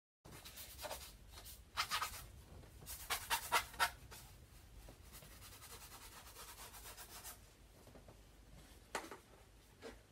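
Paintbrush strokes: a few short scrubbing rubs in the first four seconds, a fainter steady rub after, and two brief strokes near the end.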